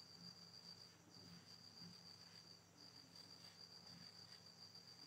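Faint cricket trilling: one steady high note, broken briefly twice.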